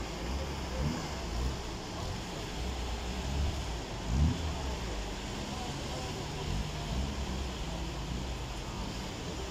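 Outdoor road traffic noise: a steady wash of vehicles with a low rumble, and one louder low thump about four seconds in.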